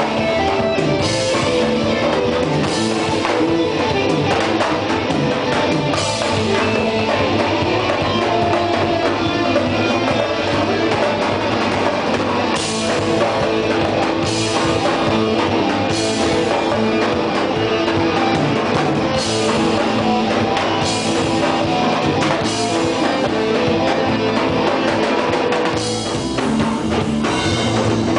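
Live rock band jamming loudly: a drum kit keeping a steady beat, with cymbal crashes every few seconds, under a distorted electric guitar and other instruments.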